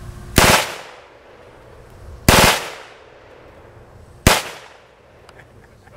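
Astra 902 machine pistol in .30 Mauser (7.63 mm) firing on full automatic in three short bursts about two seconds apart; the last burst is the shortest.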